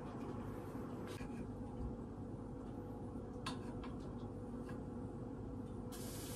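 Quiet kitchen sounds: a steady low hum with a few faint clicks and light knocks of cooking utensils against a pan.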